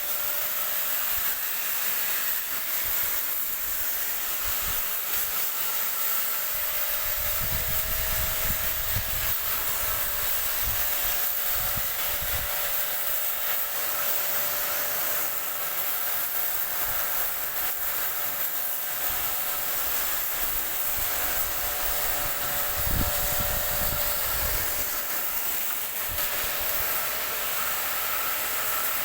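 Steady hiss of a water jet spraying while pig pens are washed down, with a couple of brief low rumbles.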